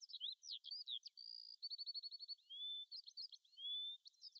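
Faint birdsong: many quick high chirps, a rapid trill and a few long rising whistles, several birds calling over one another.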